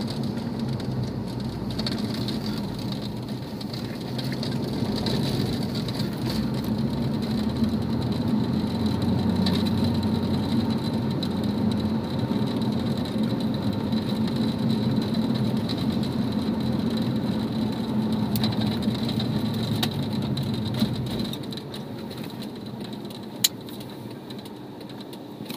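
Porsche 997's flat-six engine running with a steady drone, dropping off about 21 seconds in; a couple of sharp clicks near the end.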